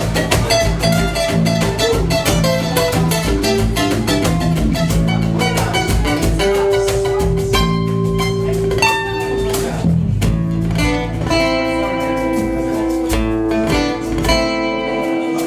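Instrumental passage of live acoustic music: guitar plucking quick runs of notes, then moving to a few long held notes.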